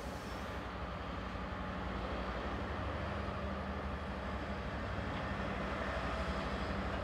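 Diesel shunting locomotive running steadily as it hauls a train of car-transporter wagons past, its engine hum and the rumble of the train growing slowly louder as it approaches.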